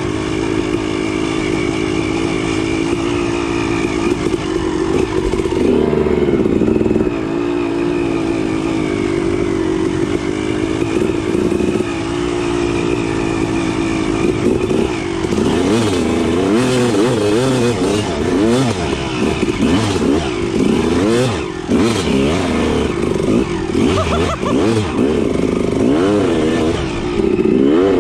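Dirt bike engine running under throttle, holding a fairly steady pitch at first, then rising and falling quickly over and over from about halfway through as the throttle is worked.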